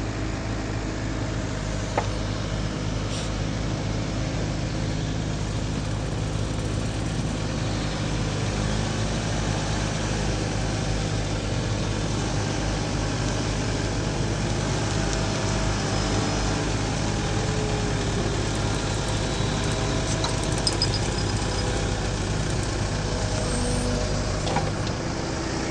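Mini excavator's diesel engine running steadily, its hum shifting slightly in pitch as the hydraulics move the boom and bucket. A single sharp click about two seconds in.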